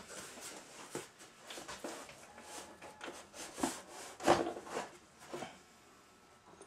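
Cardboard shipping box being handled as items are slid out of it: irregular scrapes, rustles and light knocks of cardboard, the loudest about four seconds in.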